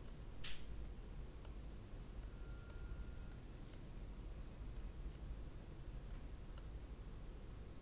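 Computer mouse button clicking, about ten short sharp clicks at uneven intervals, over a steady low hum. A brief rustle about half a second in is the loudest sound.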